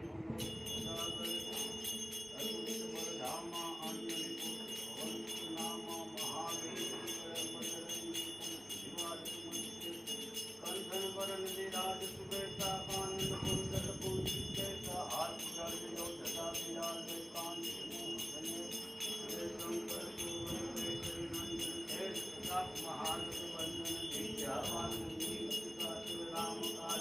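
Bells ringing continuously in a fast, even rhythm over devotional music with a melody and held low notes, as at a temple aarti.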